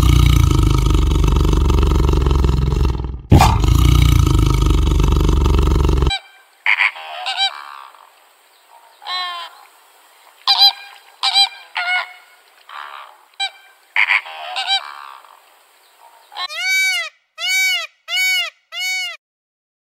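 A tiger roaring twice, loud and deep, for the first six seconds. Then a flock of flamingos gives short irregular honking calls. Near the end a peacock calls four times in quick succession.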